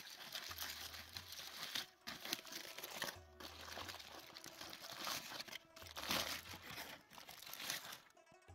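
Crinkled aluminium foil being pulled open and unfolded by hand, a continuous crackling rustle with a few brief pauses. It is the foil packet of a fish cooked on coals, being opened after cooking.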